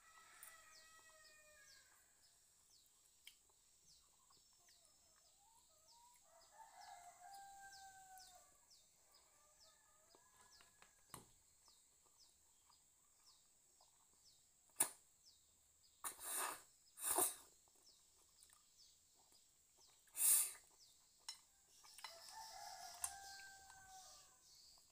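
A rooster crowing four times: once at the start, twice between about six and eleven seconds in, and once near the end, over a steady fast high ticking. Between about fifteen and twenty-one seconds in come four short, sharp noises, louder than the crowing.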